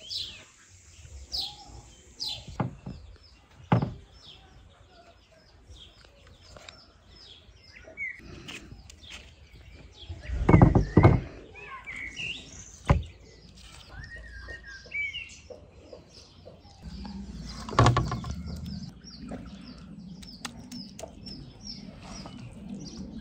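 Small birds chirping again and again, with a loud clatter of knocks about eleven seconds in and another knock near eighteen seconds; a low steady noise sets in shortly before the second knock.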